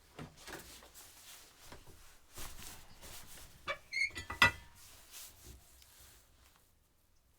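Scattered knocks and clinks of objects being handled, the loudest a pair of sharper knocks around four seconds in, with a brief high ping between them.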